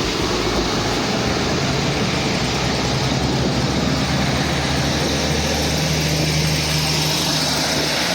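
Diesel railcar engine running steadily, a constant low hum under a broad even rush of noise.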